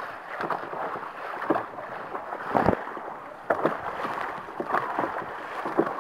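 Dragon boat being paddled hard: the crew's paddle blades dig into and splash through the water in repeated, uneven strokes over the rush of water along the hull.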